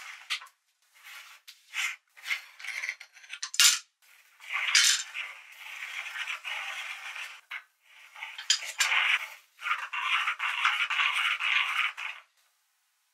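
Metal meat grinder being handled and turned: sharp metallic clinks and knocks of its parts in the first few seconds, then longer stretches of rattling and scraping as the auger turns with the end plate off, stopping shortly before the end.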